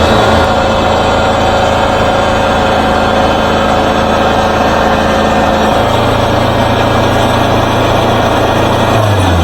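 Wood-Mizer LT40 Super Hydraulic portable sawmill running steadily as it saws a log, its engine holding a constant pitch. Right at the end the engine note drops away.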